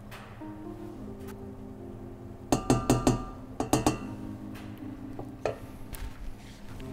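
A wooden spoon clinking against a stainless steel saucepan and a bowl as crème fraîche is spooned in: a quick cluster of sharp knocks about two and a half seconds in, a few more just before four seconds and one near five and a half seconds. Soft background music plays throughout.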